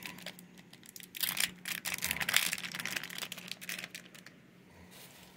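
Clear plastic packaging crinkling and crackling as it is handled, in irregular bursts that die away about four seconds in.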